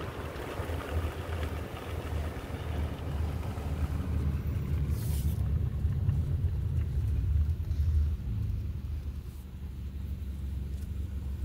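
Car driving along a road, heard from inside the cabin: a steady low rumble of engine and road noise. A lighter hiss of wind and tyres fades over the first few seconds.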